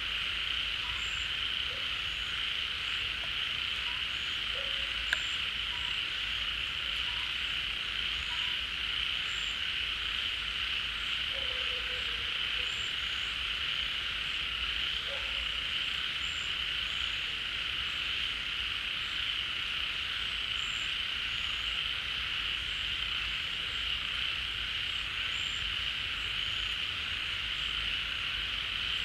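A dense chorus of many frogs calling at once, a steady high-pitched trilling din, with scattered single lower croaks standing out over it. One sharp click about five seconds in.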